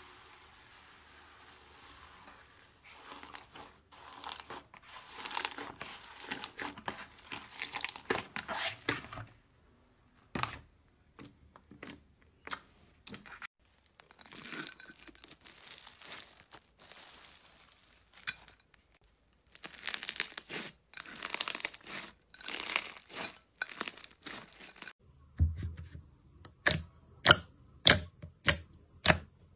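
Slime squished and pressed by hand: a dense, crinkly crackling for most of it, broken by stretches of separate clicks. Near the end come sharp popping snaps, about two a second, as fingers poke into a glossy slime and push out air.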